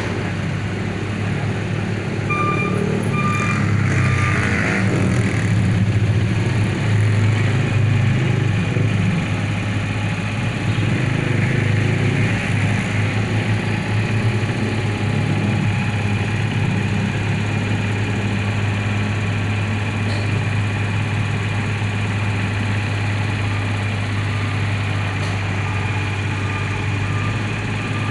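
Mini excavator's diesel engine running steadily, a little louder for a few seconds early on as it works. A warning alarm beeps briefly about two seconds in and again near the end.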